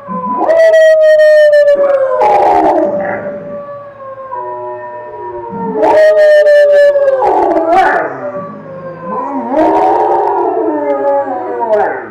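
A dog howling: several long, drawn-out howls that slide slowly down in pitch, over a steady held tone.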